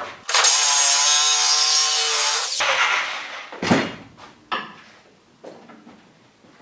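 A power tool cutting through a 3/4-inch steel pipe, running steadily for about two seconds and then stopping, followed by a sharp metal knock about a second later.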